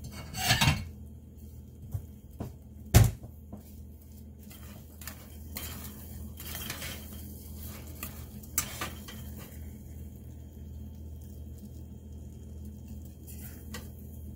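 A metal spoon clinking and scraping against a stainless steel saucepan as cooked rice is scooped out onto a plate, with a clatter about half a second in and a single sharp knock about three seconds in. A steady low hum runs underneath.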